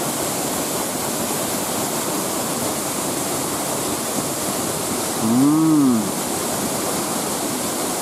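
Fudō-no-taki, a three-tiered waterfall in heavy flow, rushing steadily and loudly close to its base. A brief rising-and-falling voice sounds over it about five seconds in.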